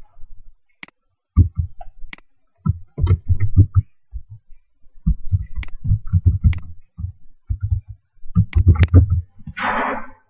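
Typing on a computer keyboard: irregular bursts of keystrokes, dull low knocks with a few sharp clicks, pausing between words. Near the end comes a short rustling hiss.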